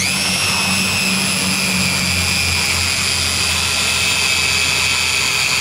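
DeWalt cordless drill running a 3-inch hole saw in reverse against a plastic bucket lid, its motor whining at one steady high pitch.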